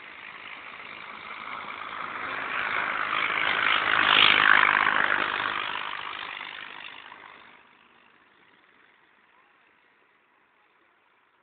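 A truck passing close by: its engine and tyre noise swells to a peak about four seconds in, then fades away, leaving near silence for the last few seconds.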